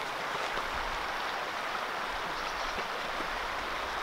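Mountain creek flowing over rocks: a steady rush of water.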